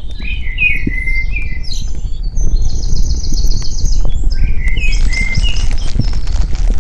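Songbirds singing: curving whistled phrases, then a rapid high trill in the middle, and more phrases about five seconds in. Under the birds runs a steady low rumble with scattered faint crackles.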